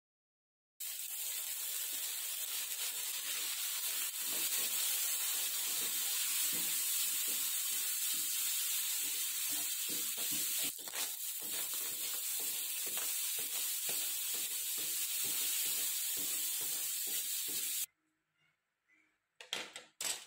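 Fried rice sizzling in a hot wok while a wooden spatula stirs and scrapes it, in regular strokes about twice a second. The sizzle cuts off suddenly near the end, followed by a few light knocks.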